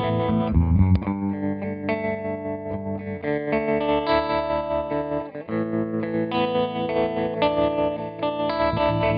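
Electric guitar played through a CopperSound Loma Prieta harmonic tremolo pedal, sustained chords pulsing with a quick, even tremolo and changing every couple of seconds, with a short break about five and a half seconds in.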